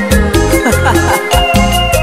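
Latin dance-band music with a steady quick beat, pulsing bass and a melodic lead line.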